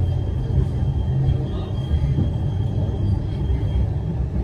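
Blackpool tram running along the track: a steady low rumble of wheels and running gear, with a faint steady high whine over it.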